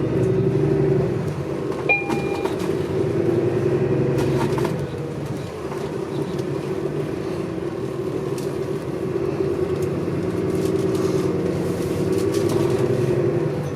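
Interior of a moving city transit bus: the steady drone of the engine and drivetrain with road noise, swelling and easing a little as the bus drives. A short beep sounds about two seconds in.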